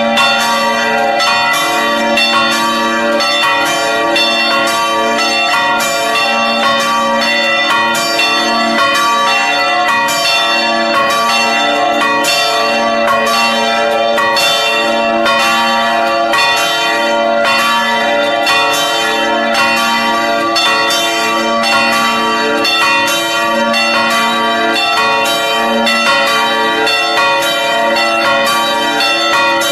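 A peal of three church bells swinging and ringing together, their clapper strikes overlapping in a steady, continuous ringing. The bells are a large bell tuned A-sharp, cast by Felczyński in Przemyśl in 2001, and two smaller 1968 bells tuned D and E.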